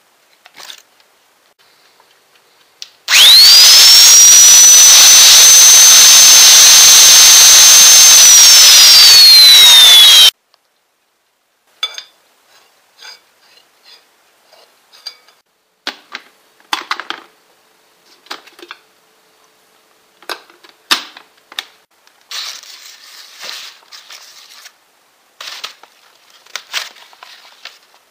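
A small electric motor whirs very loudly for about seven seconds, its whine rising fast as it starts, holding, then falling shortly before it cuts off suddenly. Afterwards come scattered clicks and rustling.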